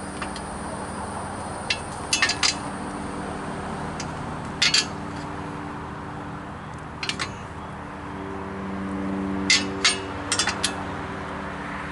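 Hand wrenches clinking against the steel bolts and frame of a motorcycle tire-changer stand during assembly. Sharp metal clinks come in small clusters every couple of seconds over a steady low hum.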